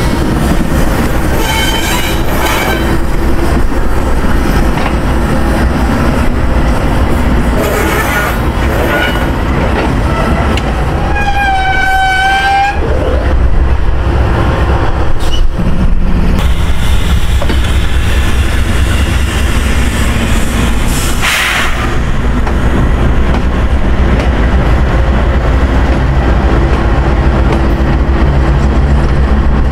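Several Union Pacific diesel-electric locomotives passing close by, their engines running with a heavy steady rumble over the noise of wheels on rail. A brief wavering tone sounds about eleven seconds in, and a sharp clank comes about two-thirds of the way through.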